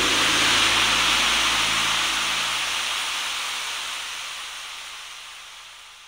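Closing moments of a 1992 Spanish children's pop song: a hissing wash of noise with a faint low held note under it, fading out steadily over several seconds.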